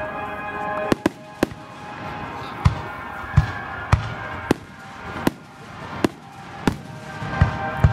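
Aerial fireworks shells bursting: about a dozen sharp booms at uneven intervals, roughly one or two a second, with music playing underneath.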